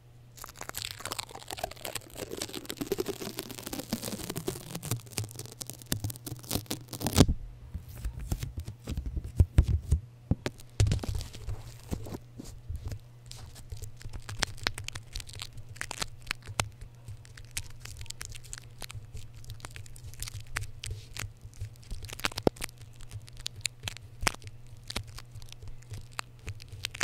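Adhesive tape worked on a foam-covered microphone up close: a long tearing peel that falls in pitch over about seven seconds and stops sharply, then dense sticky crackles and clicks as the tape is pressed and pulled against the mic, over a faint steady low hum.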